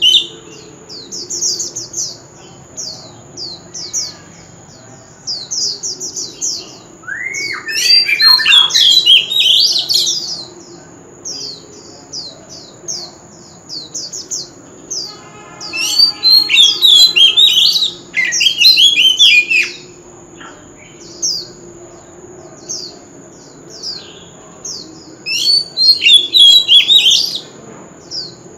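Male oriental magpie-robin singing. It gives a long series of short, quick, downward-sliding whistled notes, broken by three loud bursts of rich, varied phrases: about eight, sixteen and twenty-six seconds in.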